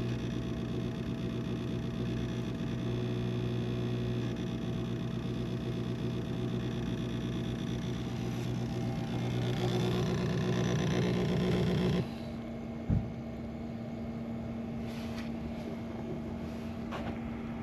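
Steady electrical hum with a higher whine from an appliance running off the vehicle's camping battery, which is drawing about 105 A. A hiss builds and the sound grows louder before it cuts off suddenly about twelve seconds in, leaving a quieter steady hum and a single thump a second later.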